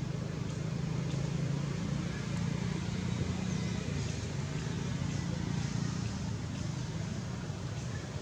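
An engine running steadily: a constant low hum with no change in pitch.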